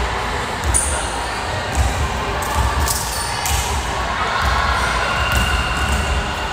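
Echoing gymnasium din: indistinct voices of players and spectators with scattered thuds of a volleyball bouncing on the hardwood floor.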